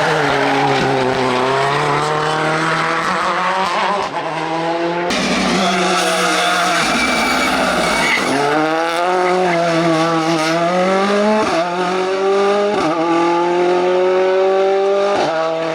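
Ford Fiesta R5 rally car's turbocharged four-cylinder engine revving hard at full throttle. Its pitch climbs steadily through each gear and falls back several times as the car shifts or lifts.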